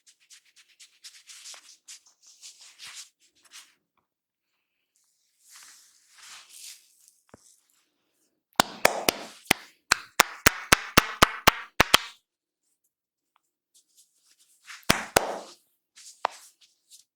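Head massage: soft rubbing of hands over hair and scalp, then a quick regular run of about a dozen sharp hand strikes, about four a second, and two more strikes near the end.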